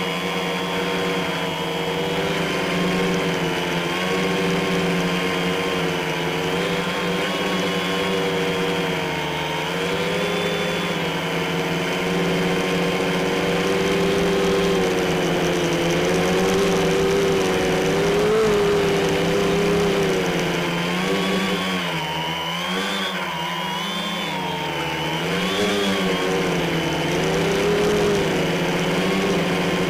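Quadcopter's electric motors and propellers whirring steadily, heard close from the onboard camera. The pitch wavers up and down with throttle changes, most clearly about two-thirds of the way in.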